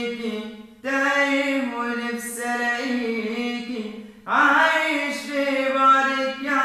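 A man singing a cappella with no accompaniment, drawing out long, wordless melismatic notes in about three phrases, each fading before the next begins.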